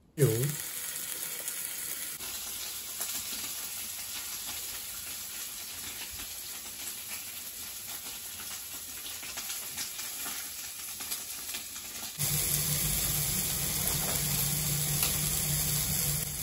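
Beef sizzling on an electric tabletop hot plate for yakiniku: a steady frying hiss with small pops. About twelve seconds in, a low hum joins it and the whole sound gets louder.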